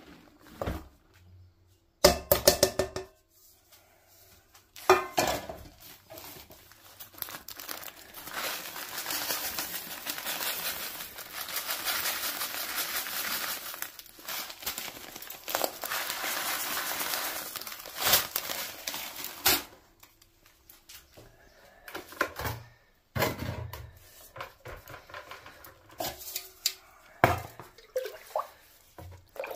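A metal bowl scooping hydrated lime powder and tipping it into a plastic bucket: several knocks and ringing clanks of the bowl against the bucket, with a long steady hiss of dry powder pouring for about ten seconds in the middle. Near the end, water is poured from the bowl into the bucket.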